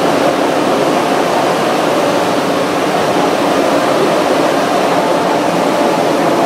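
Metro train running at speed through a tunnel, heard from inside the train: a steady, loud rushing noise of wheels, motors and tunnel air that holds even throughout.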